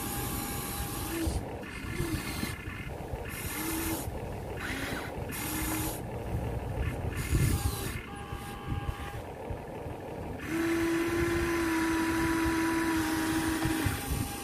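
Small electric gear motors of a Huina 1593 radio-controlled excavator whining in short bursts as the boom and bucket move, then a longer steady whine of about three seconds near the end as the upper body swings round.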